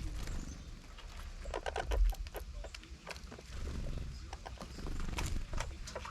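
Squirrel chattering in two short bursts of rapid clicks, about two seconds in and again about five seconds in, while guarding its food.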